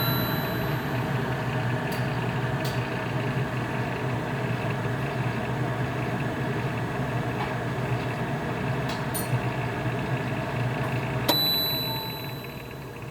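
Range hood exhaust fan running at its lowest speed with a steady hum and a few faint scratching ticks, which the owner takes for the fan blades catching the housing and suspects is a defective fan bearing. About 11 seconds in, a click and a short high beep from the control panel, and the fan begins to wind down.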